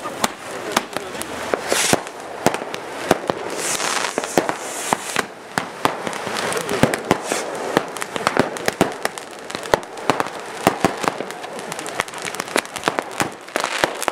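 Consumer fireworks going off: a dense, irregular run of sharp cracks and pops, several a second, over a steady hiss of spraying sparks.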